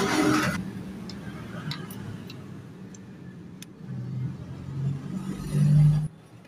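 Small motorcycle engine running, with a loud rush of noise at the start. It is revved up harder near the end, and the sound cuts off abruptly about six seconds in.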